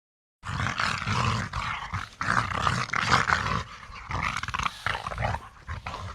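Gorilla sound effect: rough, noisy growling calls in a run of uneven pulses, starting about half a second in after silence.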